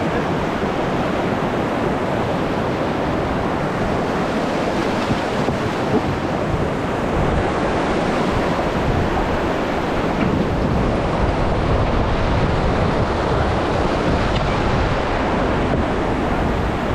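Steady rushing of river water around a raft, with wind noise on the microphone.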